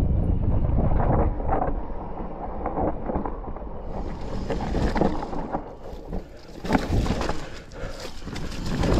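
Wind rushing over the microphone on a mountain bike descending a dirt singletrack, with the tyres and bike rattling underneath. From about four seconds in, sharper clatter and knocks as the bike rides over rough, rocky ground.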